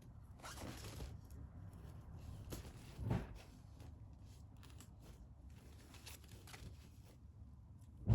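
Crinkly cat tunnel rustling in short irregular bursts as a cat moves about inside it, with a soft thump about three seconds in and a sharp knock at the very end.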